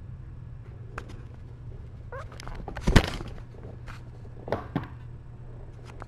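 Kittens bumping and pawing at the camera and its microphone: one loud thump about three seconds in, two smaller knocks a second and a half later, and light scattered taps, over a steady low hum.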